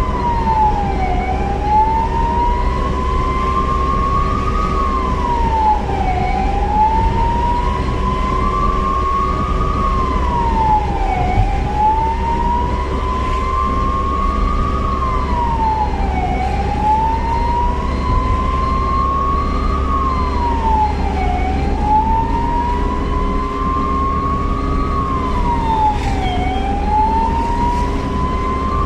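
Ambulance siren wailing: a slow rise in pitch over about four seconds, then a quick drop, repeating about every five seconds, over a steady vehicle rumble.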